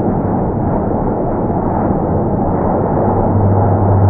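Jet airliner's engine noise slowed to a quarter speed, heard as a deep, even rumble; a steady low hum comes in about three seconds in.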